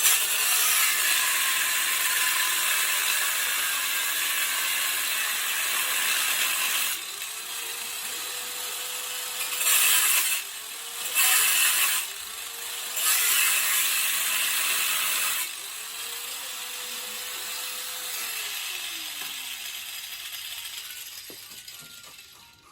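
Electric power tool cutting through a piece of thick steel with a loud, harsh, continuous noise. Its motor speeds up and slows down several times as the trigger is worked and the cut bites, with a few louder stretches in the middle. It dies away near the end as the piece comes off.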